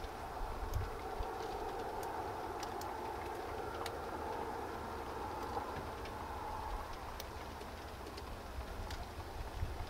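Faint outdoor ambience: a distant steady mechanical drone that fades after about seven seconds, with scattered light ticks.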